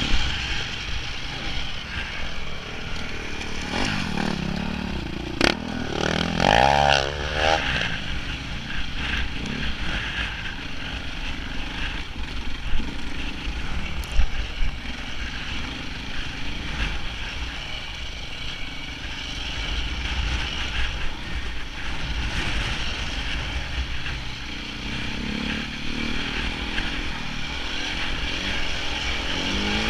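KTM enduro motorcycle engine running while the bike is ridden along a rough dirt trail, the revs rising and falling several times. Two sharp knocks, one a few seconds in and one about halfway.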